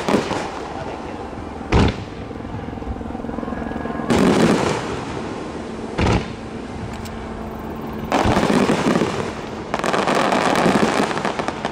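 Large aerial firework shells bursting. There are two sharp booms, about 2 and 6 seconds in, between longer stretches of rumbling, crackling bursts.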